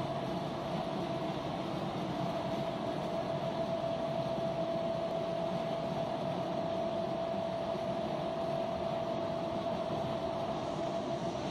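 Ring die organic fertilizer granulator and its feed belt conveyor running steadily under load as compost is fed into the hopper: an even machine noise with a constant whine.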